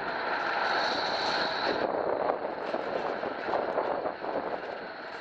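Bombardier Flexity Berlin low-floor tram passing close by on street track: a steady high whine with rolling noise that cuts off suddenly about two seconds in, then a rougher rolling rumble with a few knocks, fading as it moves away.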